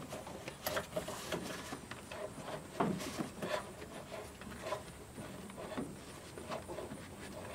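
Corrugated breather pipe being handled and worked onto its fitting: irregular rubbing and light knocks and taps.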